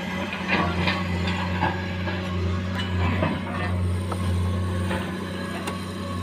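Heavy diesel engine running at a steady low hum, with scattered short knocks and clatter during the first few seconds.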